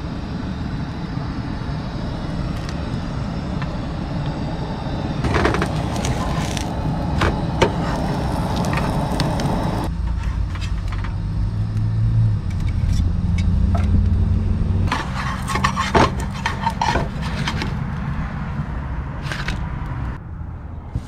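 Burritos frying in an oiled pan on a propane camp stove, with scrapes and taps of a spatula against the pan in bunches, over a steady low rumble.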